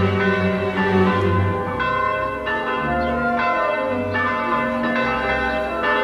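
Church bells ringing: a series of strikes, roughly one or two a second, each tone ringing on and overlapping the next.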